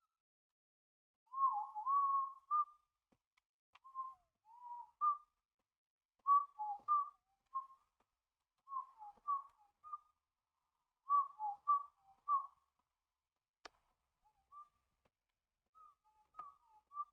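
A person whistling idly in short warbling phrases with pauses between them. A single sharp click comes near the end.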